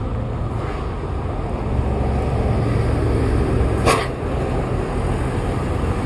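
Highway traffic: a steady low rumble of a coach bus and other vehicles passing, with a brief hiss about four seconds in.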